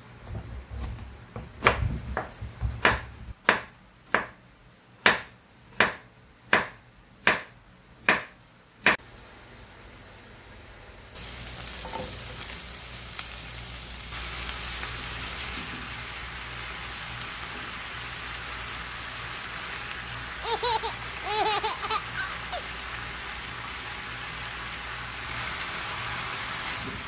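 A kitchen knife chopping through a green pumpkin on a wooden cutting board, about a dozen sharp chops in an even rhythm. Then, about eleven seconds in, garlic and green onion sizzling in hot oil in a frying pan, a steady hiss.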